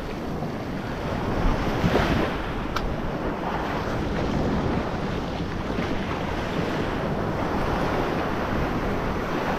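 Ocean surf breaking and washing up the beach, with wind buffeting the microphone; a wave swells louder about two seconds in.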